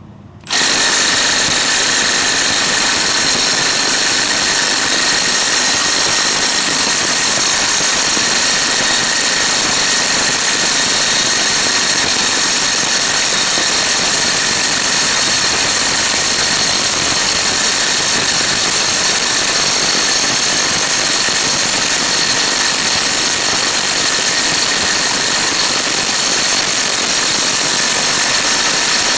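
Impact wrench hammering on the front axle nut of a Jeep Grand Cherokee, running without a break at an even, loud level.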